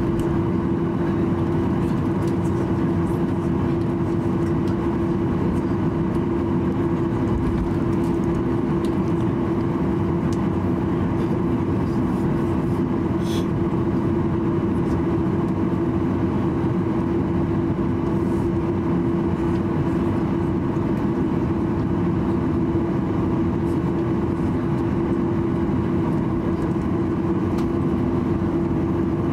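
Cabin noise inside a Boeing 737-800 taxiing: its CFM56-7B jet engines running at low taxi power, a steady drone with one steady humming tone through it.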